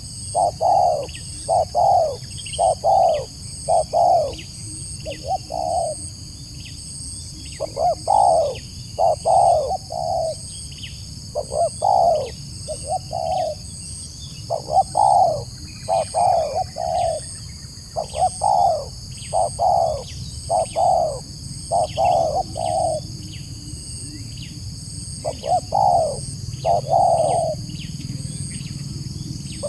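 Spotted dove (tekukur) cooing over and over, in quick phrases of two to four coos repeated every second or two.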